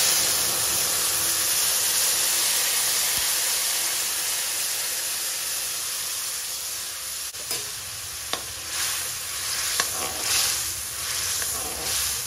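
Tomato purée sizzling in hot oil and cumin in a metal kadai, freshly poured in, the hiss slowly dying down as it settles. From about halfway, a metal slotted spoon stirs it, scraping and clinking against the pan.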